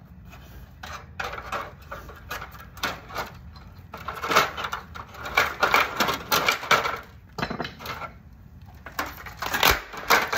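Irregular clattering and knocking of hard parts as a partly smashed TV is worked on and broken apart by hand, busiest through the middle and again near the end.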